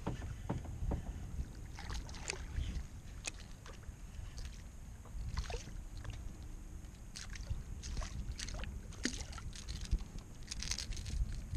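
Water lapping and splashing against a plastic kayak, with wind rumbling on the microphone and scattered light clicks and splashes as a small hooked fish is reeled to the surface and lifted out.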